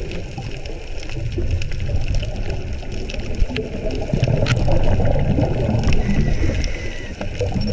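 Underwater noise picked up by a mask-mounted GoPro in its waterproof housing: a muffled, steady low rush of water with scattered faint clicks, swelling louder around the middle.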